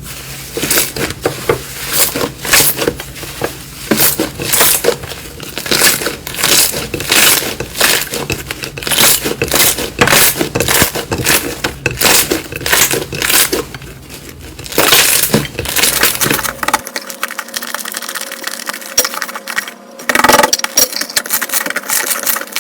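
Slime being pressed and squeezed by hand, giving dense bursts of crackling and popping every half second or so.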